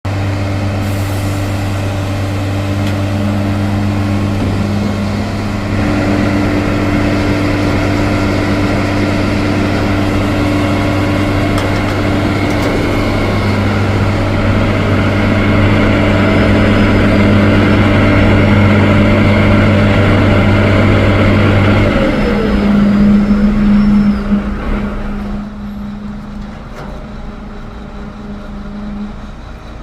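Concrete mixer running steadily with an engine hum. About 22 seconds in its lowest note stops and another falls in pitch, and a few seconds later the whole sound grows quieter.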